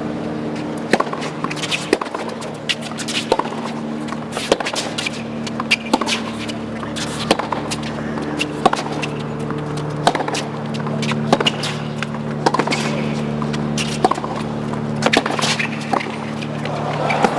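Tennis ball struck by racquets in a long baseline rally on a hard court, a sharp pop about every second or so, some of them ball bounces on the court. Underneath runs a low steady hum of several held tones.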